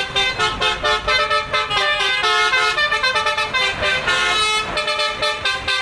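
Telolet bus horn playing a fast tune of short notes that step up and down several times a second.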